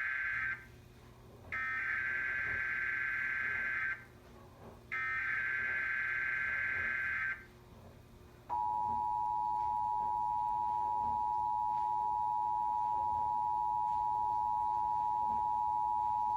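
Emergency Alert System broadcast of a Required Monthly Test: the end of one SAME digital header burst, then two more harsh data bursts about two and a half seconds long with a second's gap between them. About eight and a half seconds in, the steady two-tone EAS attention signal starts and holds.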